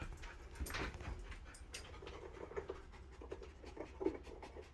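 Faint handling noise: small clicks and scratchy rustles over a steady low hum, with no refrigerator compressor heard running.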